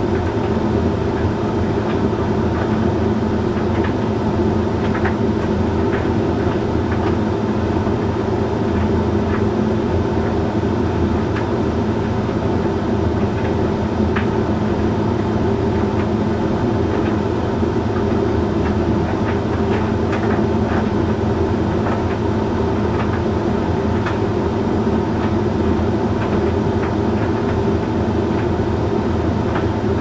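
Hoover Link X Care condenser tumble dryer running mid-cycle: a steady hum of the motor and fan with the drum turning. Scattered light clicks come from the load of shirts tumbling.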